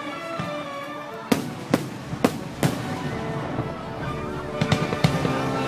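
Fireworks bursting: about six sharp bangs, in a cluster around the middle and a couple more near the end, over music playing steadily.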